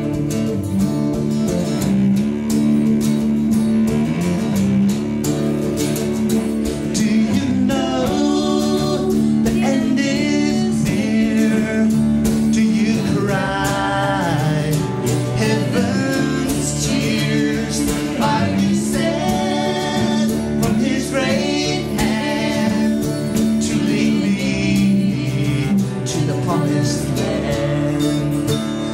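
Live acoustic folk song: strummed acoustic guitar with cello holding long low notes. From about seven seconds in, a voice sings a melody over them.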